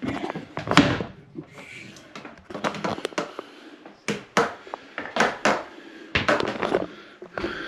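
Irregular footsteps, knocks and short clatters of someone moving about a wooden boat cabin, with the hollow, close sound of a small room.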